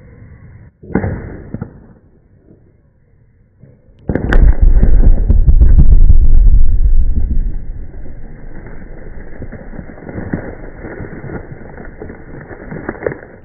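A 31-hole rock blast in hard granite goes off about four seconds in: a heavy, deep rumble lasting about three seconds, then a long dying tail with scattered cracks. A single shorter sharp bang comes about a second in, before the main blast.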